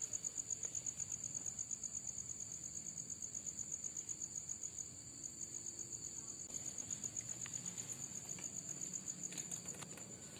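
Crickets chirping: a steady, high-pitched trill made of rapid, even pulses.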